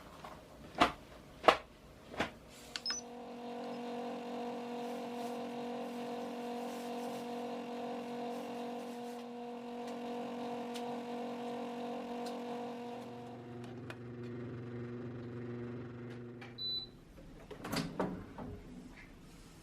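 A few sharp clicks, then an electric kitchen appliance humming steadily for about fourteen seconds, its hum deepening partway through. It stops with a short high beep, followed by a few more clicks.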